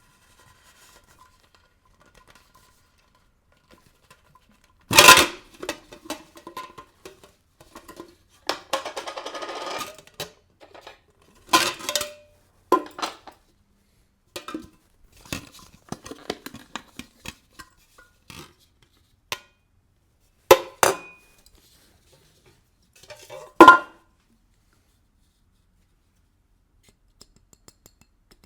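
Handling of a boxed perfume bottle and its packaging: scattered sharp knocks and clinks, with a brief crinkly rustle of packaging about nine seconds in.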